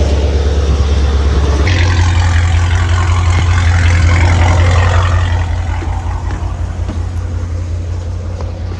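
Dodge Challenger Scat Pack's 392 (6.4-litre) HEMI V8 running at idle on its first start-up, a steady low engine note. The idle speed steps up a little about two seconds in, and the sound eases off slightly after about five seconds.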